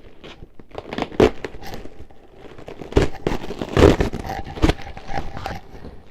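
A cardboard shipping box and its packing being unpacked by hand: rustling and crinkling with scattered knocks and scrapes, loudest about three and four seconds in.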